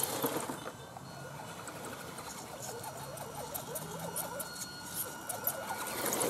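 Axial SCX10 RC crawler's electric motor and gears whining as the truck climbs over a mud mound, the pitch rising and falling with the throttle about midway through, with faint ticking from the tyres.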